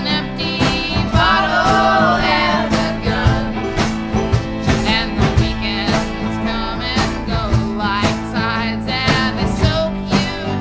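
Folk-rock band music: guitar and other plucked strings over a steady beat, with a gliding melody line about a second or two in.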